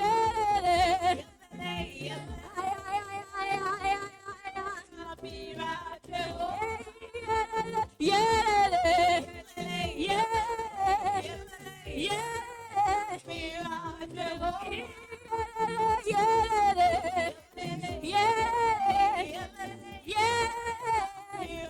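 A gospel praise song sung by a lead vocalist with heavy vibrato and long held, ornamented notes, over instrumental backing.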